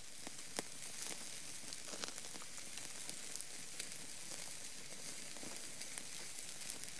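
A steak sizzling on a grill rack over a campfire: a steady hiss with small scattered pops and crackles.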